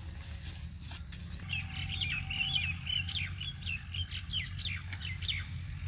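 A bird chirping a quick run of short notes, starting about a second and a half in, over a steady low rumble.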